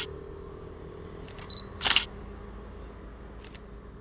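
Sony A7 III camera taking pictures: a short high beep about one and a half seconds in, then the shutter firing with a sharp click about two seconds in. A fainter click follows near the end, over a steady low background hum.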